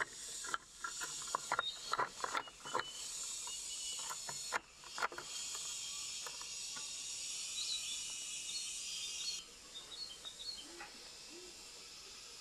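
Hard wooden pieces of a folding stool clacking and knocking against each other as it is folded and set up, many quick knocks in the first five seconds, over a steady high insect drone. The drone drops away about nine seconds in, leaving faint chirps.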